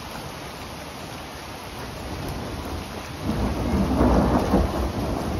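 Steady rain, then a rolling rumble of thunder that swells about three seconds in and peaks near the end.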